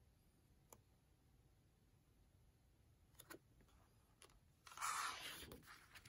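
Paper pages of a book rustling as they are handled: a few faint ticks, then one louder swish of a page being lifted and turned near the end.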